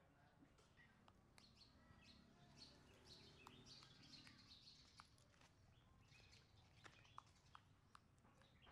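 Near silence: faint outdoor background with scattered small high chirps and ticks.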